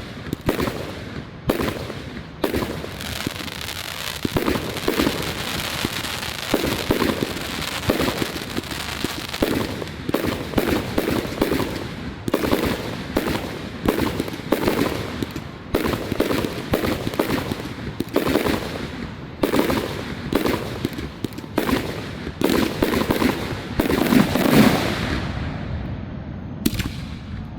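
Fireworks display: bursts going off in rapid succession over a steady crackle and hiss, with the barrage easing off near the end apart from one last burst.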